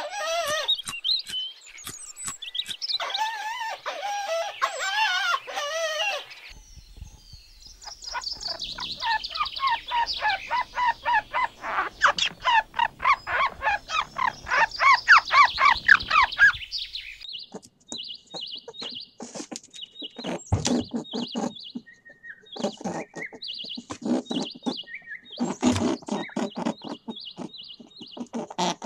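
High-pitched animal calls: wavering squeals for the first several seconds, then a long run of rapid repeated chirps, then scattered short chirps and clicks.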